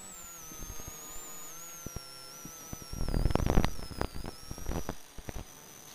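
Faulty rally-car intercom: a steady electrical whine and hum, broken about three seconds in by a loud burst of crackle and static lasting about a second, then scattered clicks. This is intercom interference, the crackle that made the crew hard to hear each other.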